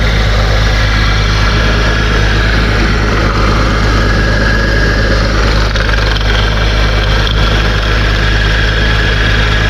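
Porsche Boxster flat-six engine idling, heard close at the accessory belt drive, with a steady high note over the engine sound. The noise comes from the idler pulley in the belt drive, whose bearing is failing.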